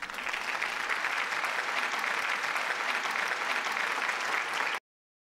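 Crowd applause, a dense even clapping that starts suddenly and cuts off after nearly five seconds.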